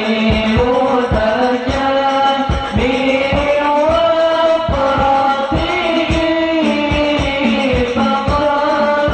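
A sholawat group performing live: male voices singing a devotional Islamic melody over hand drums keeping a steady beat.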